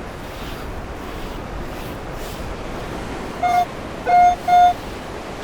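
Metal detector giving three short electronic beeps over a steady background hiss, the first quieter and the last two louder and close together, signalling a buried metal target.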